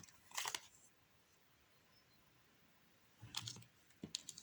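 A few faint clicks and taps from playing cards being handled on a table: one about half a second in, then a small cluster near the end.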